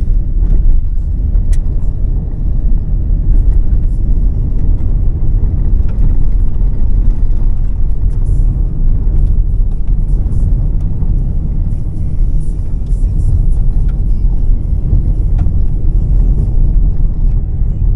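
Car driving on an unpaved gravel road, heard from inside the cabin: a steady low rumble of tyres and engine.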